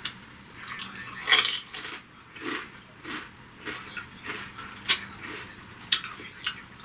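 A Pringles potato crisp being bitten and chewed: a cluster of loud crunches about a second and a half in, then scattered crunches.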